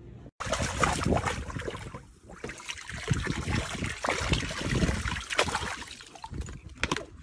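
Water from a running garden hose that a puppy is biting, spraying out around its mouth and splashing into a paddling pool, with irregular splashes.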